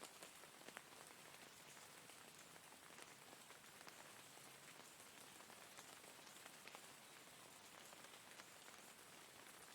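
Faint, steady rain falling on a surface: an even hiss with many single drops ticking through it.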